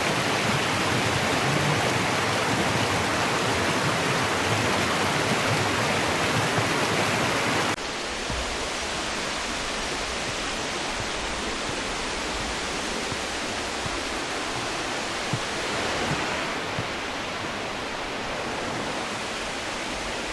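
Rushing water of a mountain gorge stream and its waterfalls, a steady hiss. About eight seconds in it drops suddenly to a quieter, duller rush.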